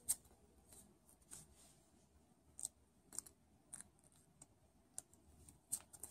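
Faint handling noise: about ten small, sharp, irregular clicks and light rustles as fingers fit latex flat bands and matchstick toggles into the slots of a metal slingshot. The sharpest click comes right at the start.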